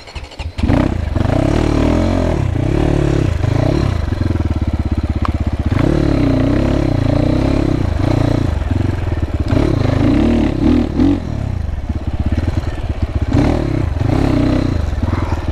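GPX FSE300R dual-sport motorcycle's fuel-injected 300 cc engine under way, revving up and down over and over as the throttle is opened and closed. The engine picks up about half a second in, after a brief lull.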